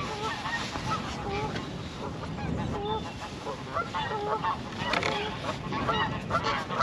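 A flock of geese honking, many short calls a second overlapping one another.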